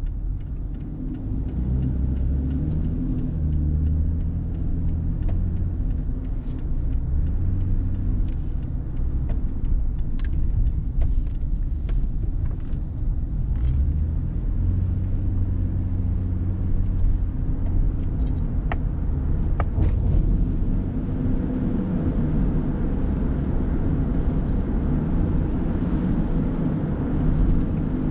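A car being driven: a steady low rumble of engine and road noise, with a few faint clicks around the middle.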